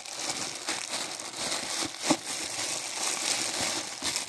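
Thin clear plastic bag crinkling as hands pull it open and off a shoe in a shoebox, with one louder crackle about two seconds in.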